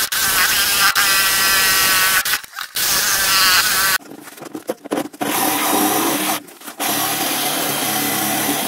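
Parkside jigsaw with a narrow blade cutting through a wooden floor, stopping briefly twice.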